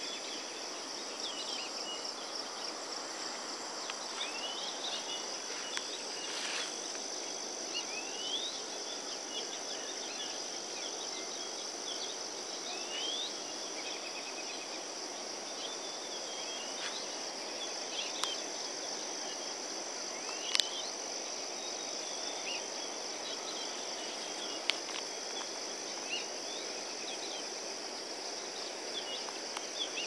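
A steady, shrill insect chorus that never lets up, with many short bird chirps scattered through it over a soft even hiss. A few sharp clicks stand out around the middle and later.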